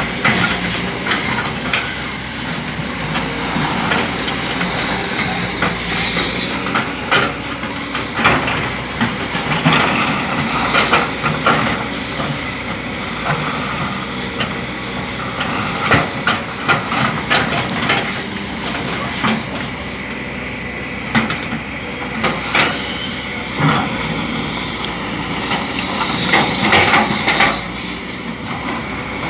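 Kobelco SK200 hydraulic excavator working: its diesel engine runs steadily under load while metal clanks and knocks come again and again, heaviest in the middle and near the end.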